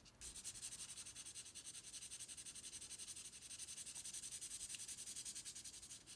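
Felt-tip marker scribbling on paper in quick, even back-and-forth strokes, colouring in a shape. The scratching is faint.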